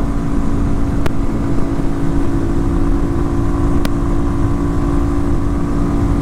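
2019 Kawasaki KLX250's fuel-injected single-cylinder four-stroke engine running steadily at highway speed, about 70 mph at around 7,200 RPM, with heavy wind rush over the microphone.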